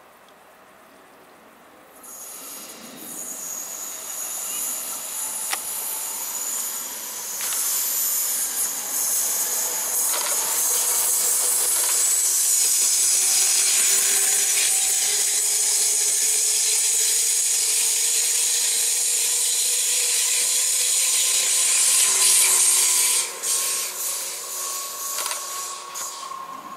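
A Pesa Elf EN76 electric multiple unit passing close by: the noise of its wheels on the rails builds from about two seconds in to a loud, steady hiss as the carriages go past, with a thin whine over it, then drops off sharply near the end as the train moves away.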